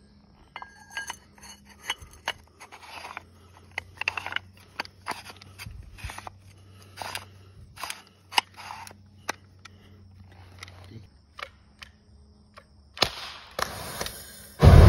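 Irregular sharp metal clicks as the ignition cylinder at the nozzle of an M2 flamethrower is turned and indexed by hand. Near the end a rushing hiss starts as the fuel stream is released, then a sudden loud burst as the gun fires.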